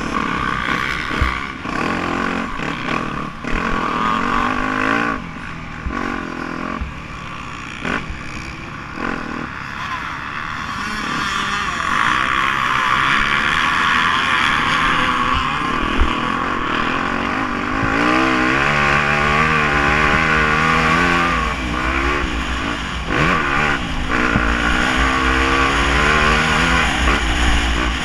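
Yamaha YZ250F's four-stroke single-cylinder engine under riding load, revving up and down repeatedly through throttle and gear changes, with wind rush on the onboard camera's microphone. The rises and falls in engine pitch are clearest in the second half.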